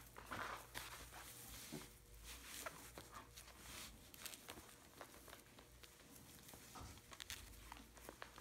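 Faint rustling of straw bedding with scattered soft ticks as a puppy scrabbles about on it and is petted.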